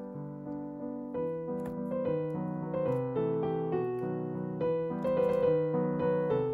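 Background piano music: a melody of struck notes over chords, new notes about twice a second.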